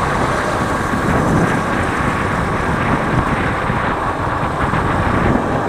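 Steady wind rush on the microphone of a moving motorcycle, with the motorcycle's engine and road noise running beneath it.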